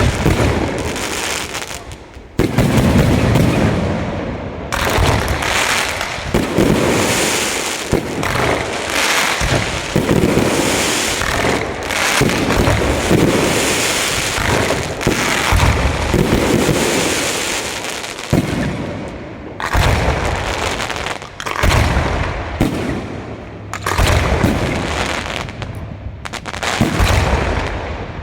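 Fireworks display: a continuous barrage of shell bursts, loud booms coming every second or so over dense crackling.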